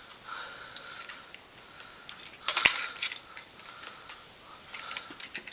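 Handling noise of a ceramic flat iron being clamped and slid along a section of hair: scattered light clicks and rustling, with one sharper click about two and a half seconds in.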